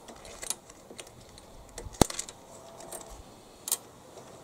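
Small metallic clicks and taps of hands handling the lawnmower's control cables and handlebar fittings, with one sharp click about two seconds in and another a little before the end.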